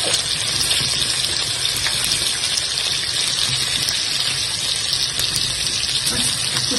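Steady sizzling and crackling of food frying in a karahi pan.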